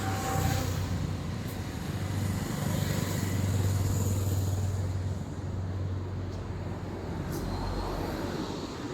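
Road traffic noise: a vehicle's low engine rumble swells over the first few seconds and then eases off, over a steady hiss of street noise.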